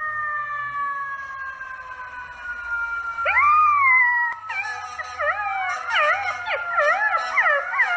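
Golden retriever puppy howling: long high howls whose pitch slides slowly down, then a rising howl about three seconds in, and from about halfway quick, wavering yodel-like howls that rise and fall.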